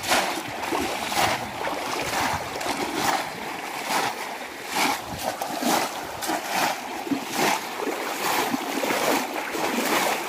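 Repeated splashing as bamboo polo fish traps are plunged again and again into shallow water by people wading, the splashes coming every half second or so over the steady rush of flowing water.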